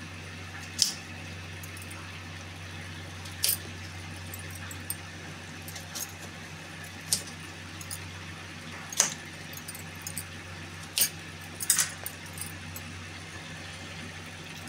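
Irregular sharp clicks and clinks as a small knife cuts an onion into pieces on a stone worktop, over a steady low hum.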